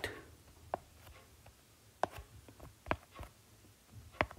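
A few faint, separate clicks, about four in all, from a pen tapping and drawing on a writing tablet.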